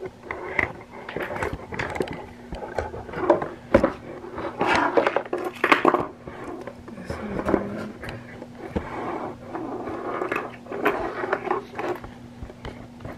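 Earrings and other small hard objects clinking, tapping and clattering as they are handled and rummaged through, with a faint steady hum underneath.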